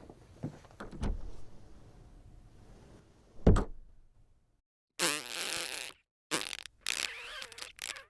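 Footsteps, a few evenly spaced steps ending in a heavier thud about three and a half seconds in. After a brief silence comes a separate effect: a rough noisy sound about a second long, then several short noisy bursts.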